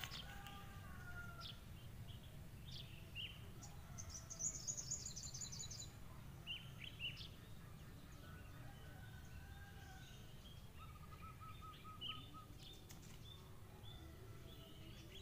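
Birds chirping and calling: scattered short chirps, a rapid high trill about four seconds in and a lower, even trill around eleven seconds. A faint steady low rumble runs underneath.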